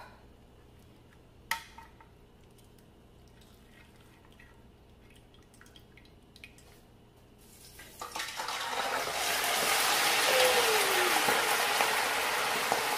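A single clink about one and a half seconds in. About eight seconds in, a whole pre-baked chicken goes into a pot of hot oil and the oil starts sizzling loudly. The sizzle builds up over a second or two and then holds steady as the chicken deep-fries.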